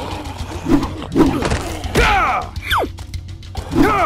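Short wordless cartoon-style vocal yelps and grunts, several in a row, with one quick falling whistle-like glide about two-thirds of the way in, over a steady low hum.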